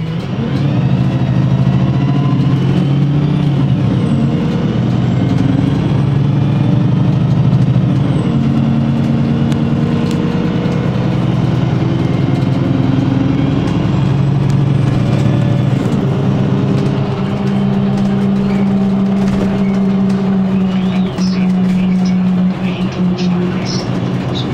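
VDL bus diesel engine running, its note shifting up and down in steps several times, with a few sharp clicks near the end.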